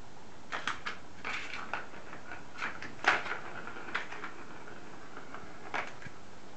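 Irregular hard plastic clicks and knocks as a kitten paws at a plastic circuit ball-track toy, with the ball rattling along inside the track. The loudest knock comes about three seconds in.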